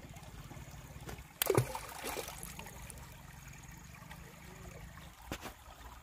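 Shallow river water trickling at a sandy bank. A sudden loud thump comes about a second and a half in, and a short knock near the end.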